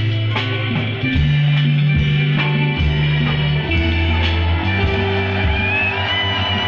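Upbeat band music with plucked guitar, a deep sustained bass line and a steady beat; wavering higher melodic lines join after about five seconds.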